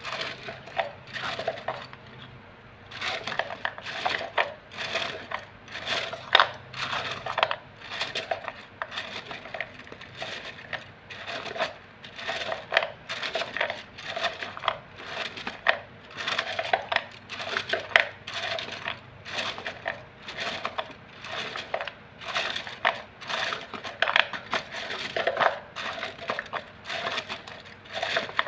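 Wooden fortune sticks (xăm) clattering against each other and the cup as a hand stirs and sorts them, in a rapid, irregular run of clicks with a brief lull about two seconds in.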